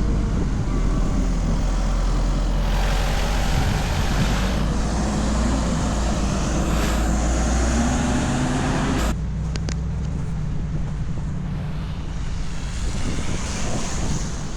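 Street traffic, with vehicles passing and a steady low rumble. The sound changes abruptly about nine seconds in.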